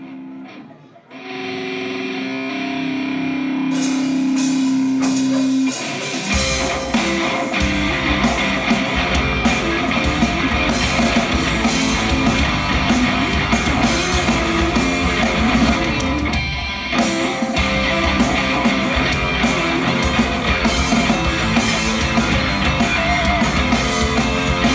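Rock band playing a song's instrumental intro live. A guitar starts alone with held notes about a second in, cymbals join a few seconds later, and the full band with drums and bass comes in about six seconds in, with a brief break near seventeen seconds.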